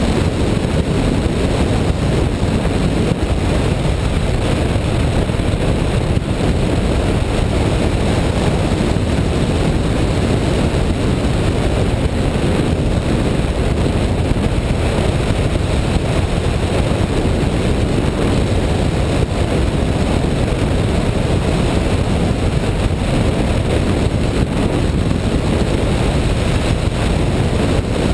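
Airflow rushing steadily over the microphone of a camera mounted on a hang glider's wing in flight: a loud, even noise, heaviest in the low range.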